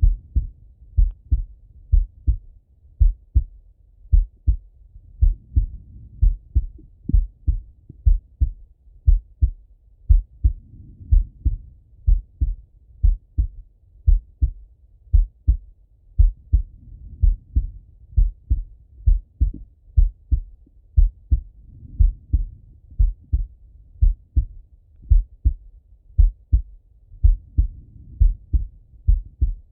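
A man's slow heartbeat heard through a stethoscope: a steady run of low double thuds (lub-dub), about one beat a second. Under the beats a soft hiss rises and falls every five or six seconds.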